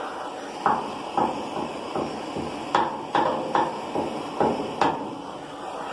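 A wooden lead-loading paddle knocks and scrapes against soft body lead on a steel car panel, making a series of sharp irregular taps. A canister blowtorch hisses steadily underneath.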